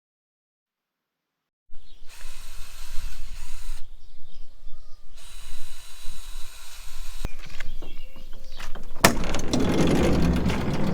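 Total silence for about a second and a half, then clicking, whirring tool noise from a wooden cabinet being assembled, in short clips that change abruptly every second or two, getting louder near the end.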